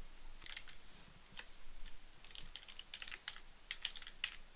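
Computer keyboard typing: quiet keystrokes coming in short, irregular bursts.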